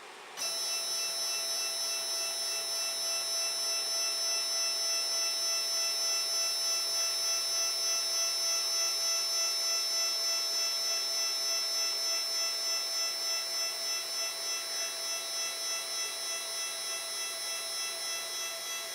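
Protomaker 3D printer's Z-axis stepper motors whining as they drive the threaded rods and carriage upward: a steady high whine of several tones that starts abruptly just after the beginning and wavers slightly in the second half.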